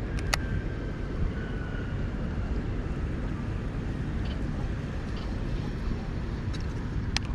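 Steady low rumble of wind buffeting the microphone, with a sharp click just after the start and another near the end.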